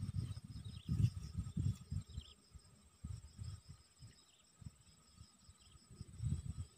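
Insects in the grass trilling steadily and high, with a chirp that pulses a few times a second, over irregular low gusts of wind on the microphone.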